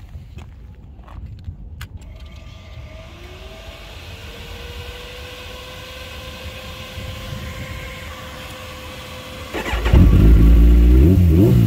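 A few key clicks, then a faint steady whine for several seconds. Near the end the 2012 Kawasaki ZX-14R's inline-four cranks and fires up loudly through its Brocks exhaust, the revs briefly rising and falling.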